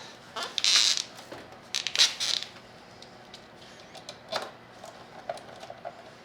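Small metal hardware clinking and rattling as bolts and parts are handled by hand during assembly. There are two louder clattering bursts in the first two and a half seconds, a single knock past the middle, and scattered light ticks in between.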